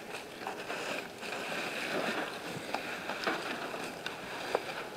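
A hand rustling and scooping through dry pine-shaving bedding, a soft continuous rustle with a few faint light ticks.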